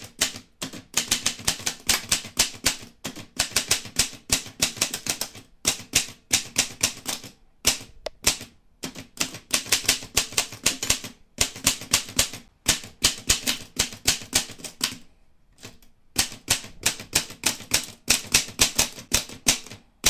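Rapid clacking of typewriter keys, in runs of several seconds broken by short pauses, the longest about a second near two-thirds of the way through.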